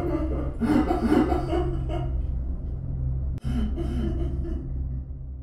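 Horror soundscape: a low, steady rumbling drone with a breathy voice gasping and sighing over it, without words, starting to fade out near the end.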